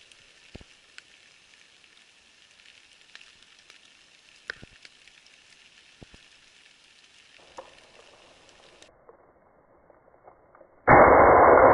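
Light rain pattering on an umbrella with a few louder drops, then near the end a loud hunting-rifle shot that rings on and echoes through the woods.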